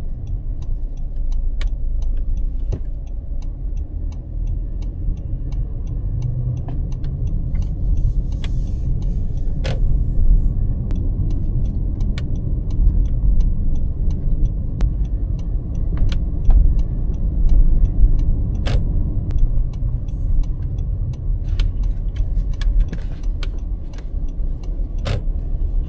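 Steady low road rumble inside a sixth-generation Honda CR-V, with sharp clicks from the steering wheel at irregular intervals, a few of them louder. The clicks are an abnormal steering-wheel noise.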